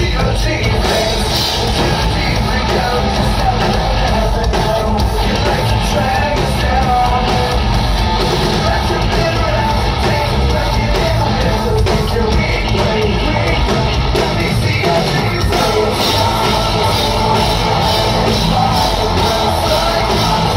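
Live rock band playing loudly through a PA, with electric guitars, bass, drums and a singer's vocals, heard from within the crowd.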